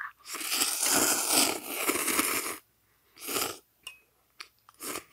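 A person slurping instant ramen noodles: one long slurp of about two seconds, then a shorter slurp about three seconds in, and a few brief slurps near the end.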